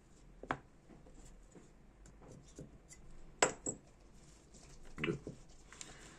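Tweezers and small metal tools being handled and set down on a workbench, clinking lightly. There are a few separate clicks, the sharpest about three and a half seconds in, and a small cluster about five seconds in.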